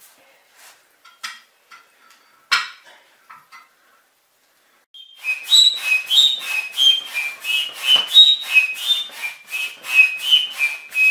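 A few light clicks and one knock. Then, about five seconds in, a rapid rhythmic squeaking of about four strokes a second, each stroke with a high shifting squeal, from something being worked by hand at a fireplace.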